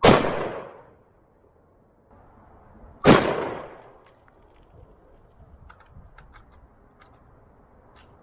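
Two loud gunshots about three seconds apart, each with a short echoing tail, followed by a few faint clicks.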